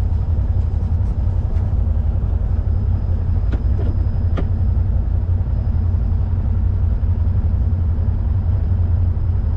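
Side-by-side UTV engine running steadily with a low rumble, heard from the driver's seat, with a few light clicks about halfway through.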